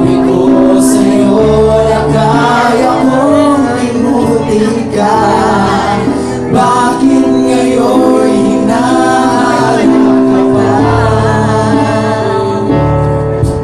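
Male vocal group singing a ballad live in close harmony through microphones, several voices holding notes together, with low bass notes coming in at times underneath.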